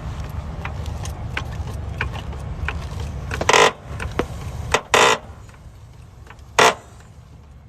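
Car being raised on a jack: light metallic clicks and rattles, with three loud, short, harsh bursts of noise, over a low steady vehicle rumble that fades about five seconds in.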